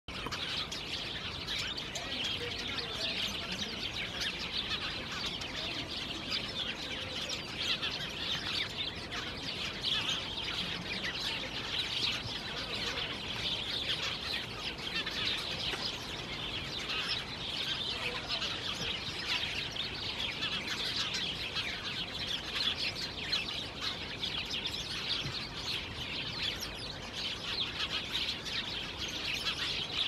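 A flock of house sparrows chirping together in a steady chorus of many short, overlapping chirps.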